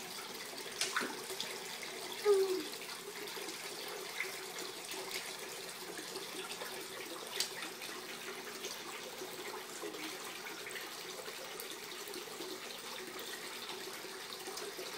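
Water trickling steadily as it spills over the tiers of a small stone fountain into its basin, with a few light clicks and one brief louder sound about two seconds in.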